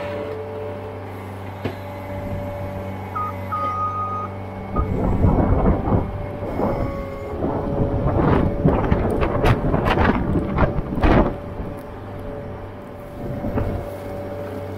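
Skid loader engine running steadily, with a loud stretch of clanking and rattling from the loader and bucket in the middle.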